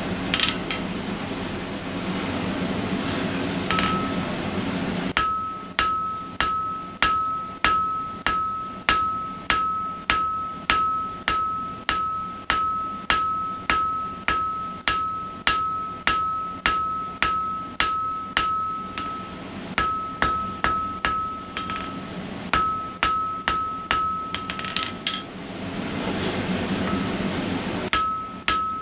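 Blacksmith's hammer striking mild-steel bar on an anvil, about two blows a second, each blow leaving a clear ring, while rounding off the bar's corners. The hammering starts about five seconds in, after a stretch of steady rushing noise, and pauses for a couple of seconds near the end before starting again.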